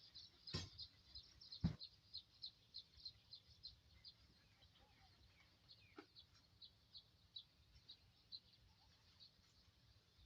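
Faint bird chirping: short high notes repeated about three times a second, thinning out toward the end. Two sharp clicks come near the start.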